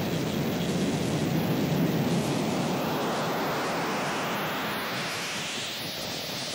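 Harsh noise recording: a dense, unbroken wall of distorted static and rumble. Over the second half a brighter, hissier band slowly rises in pitch.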